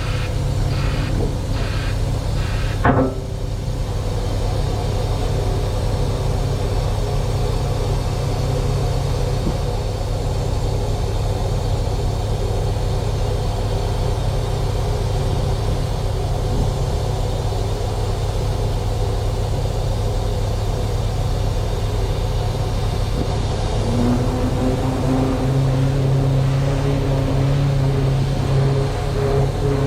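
A vehicle's engine running steadily with a low rumble, a single knock about three seconds in, and a higher engine tone joining near the end.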